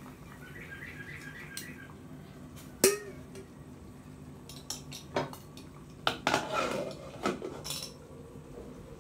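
Stainless steel stockpot and its glass lid clanking: one sharp ringing metal clink about three seconds in, then a cluster of clattering knocks in the second half as the lid goes onto the pot.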